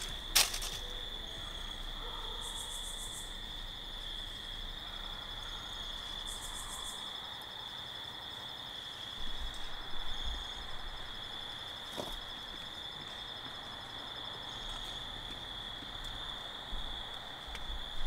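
Steady high-pitched chorus of crickets and other night insects at dusk, with a sharp click about half a second in and a fainter one near the middle.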